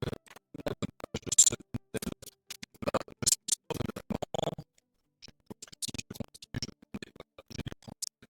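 A quick, irregular run of clicks, knocks and scratches, with a short pause about halfway through.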